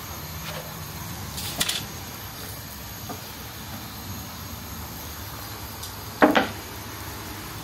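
Knocks on a steel sac griddle as gözleme are handled with a wooden paddle: a lighter knock just under two seconds in and a sharper, louder one about six seconds in, over steady background noise.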